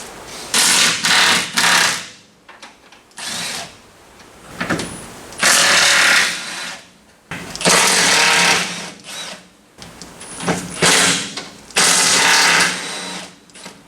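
Impact wrench working bolts loose in repeated short bursts, with pauses between them.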